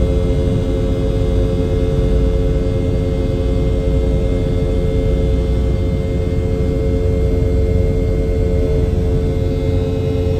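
Boeing 717's rear-mounted Rolls-Royce BR715 turbofan running at a steady setting, heard from a cabin window seat right beside the engine: a steady droning hum over a low rumble.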